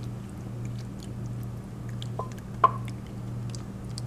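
Sauce-coated penne sliding and dripping from a stainless steel pot into a metal baking pan, with faint wet ticks. About two seconds in come two metal clinks with a short ring, the second louder, over a steady low hum.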